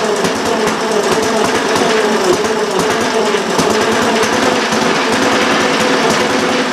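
A 1923 Briggs & Stratton Model PB single-cylinder air-cooled engine running, with rapid firing pulses and a pitch that wavers a little. The engine has barely been run since its restoration and is not yet running smoothly.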